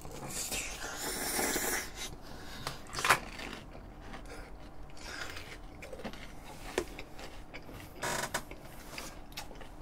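Eating sounds: a forkful of tomato spaghetti slurped into the mouth, then quiet chewing, with a few short clicks along the way.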